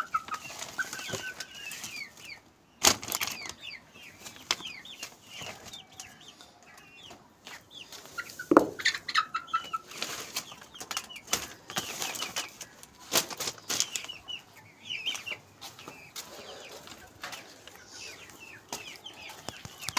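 Blankets and cloth covers rustling and flapping as they are pulled about over a chicken cage, with chicks cheeping and clucking throughout and a few sharp knocks.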